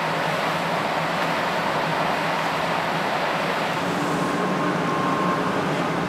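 Steady rushing noise with a faint low hum from a stationary 500 Series shinkansen trainset's running equipment.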